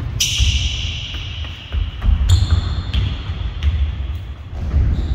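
Thudding footfalls of a person sprinting across a sports-hall floor and going down onto a gym mat, with two sharper scuffs, about a quarter second and two seconds in.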